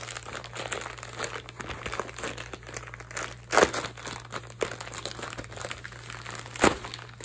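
A plastic bag crinkling and rustling as it is handled and pulled open to unwrap a camera. Two louder crackles come about three and a half seconds in and again near the end.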